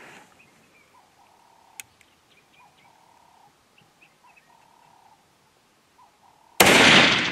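A single hunting-rifle shot about six and a half seconds in, loud and sudden, its report dying away over the next second; the shot fired at a kudu and called a good hit. Before it, only faint bird calls.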